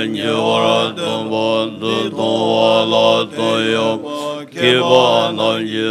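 Tibetan Buddhist monks chanting a prayer together in a low, steady-pitched voice, with short breaks between phrases.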